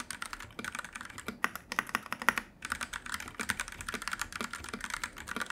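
Fast typing on a Noir N1V3 mechanical keyboard fitted with Gateron Yellow switches and foam-damped: a dense, quick run of keystroke clacks with a brief pause about two and a half seconds in.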